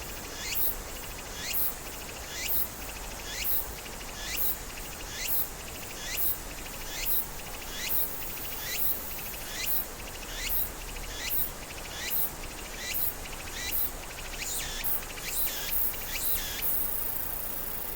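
Insect calling: a short, high, downward-sweeping chirp repeated about once a second. The chirping stops shortly before the end, leaving a steady high hiss.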